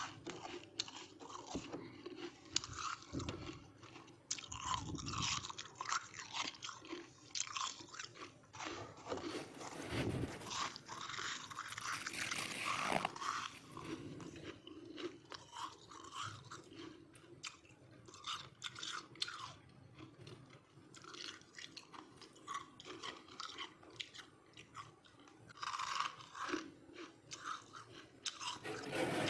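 Freezer frost being chewed: a run of irregular, crackly crunches of powdery ice between the teeth.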